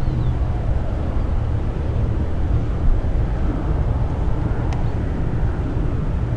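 Twin piston engines of a Cessna 414A Chancellor on approach, heard from a distance as a steady low drone.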